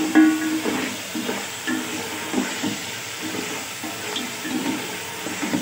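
Boiled beef pieces sizzling in oily onion-tomato masala in an aluminium pot while being stirred with a wooden spoon: the meat being fried (bhuna) before the stock goes in.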